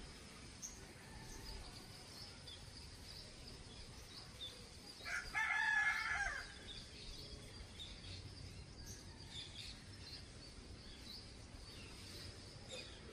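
A rooster crows once, about five seconds in, lasting about a second and a half, over faint scattered chirps of small birds.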